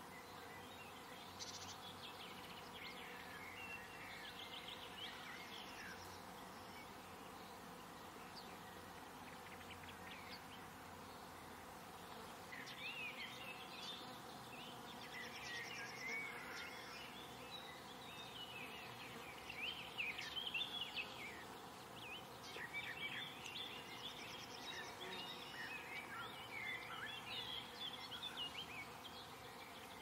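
Faint garden ambience: small birds chirping and twittering over a steady buzz like insects. The chirping grows busier about halfway through.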